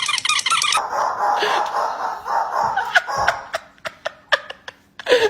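Rapid repeated high squeals that stop abruptly under a second in, then a rustling noise with scattered clicks, and a single dog bark at the very end.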